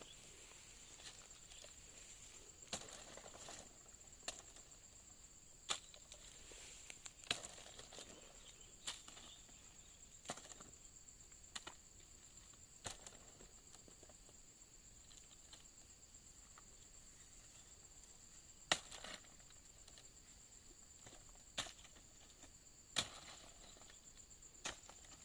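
Sharp chopping knocks from oil palm harvesting work, irregular and about a dozen of them, over a steady high-pitched insect drone.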